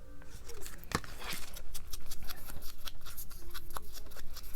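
Scissors snipping paper in quick successive cuts, with paper rustling.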